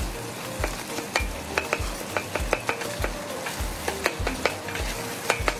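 Tomatoes frying in a pan, sizzling as they are stirred, with a spoon clicking sharply against the pan many times.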